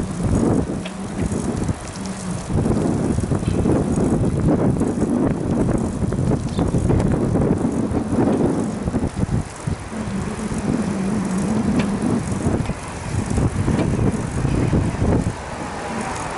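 Wind buffeting the microphone while riding a bicycle, with tyre and road rumble underneath. A faint low hum comes and goes.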